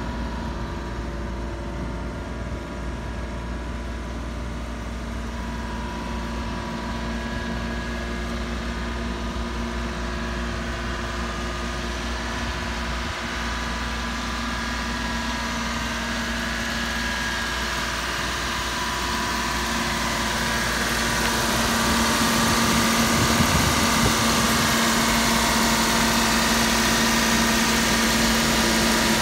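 Mitsubishi Minicab kei truck's small three-cylinder engine idling steadily, growing louder about two-thirds of the way through as it is heard close up at the open engine bay.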